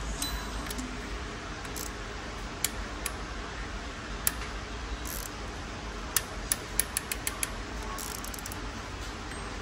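Click-type torque wrench ratcheting as water pump bolts are brought up to torque: scattered sharp metallic ticks, with a quicker run of ticks past the middle, over a steady low hum.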